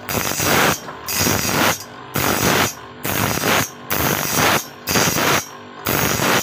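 Spinning grinding disc sharpening the teeth of a steel saw blade, the blade fed in tooth by tooth so the grinding comes in bursts about once a second with short breaks between.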